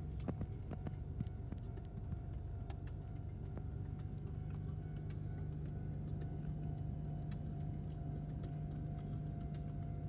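Car engine idling, heard from inside the cabin as a steady low hum, with a few small clicks.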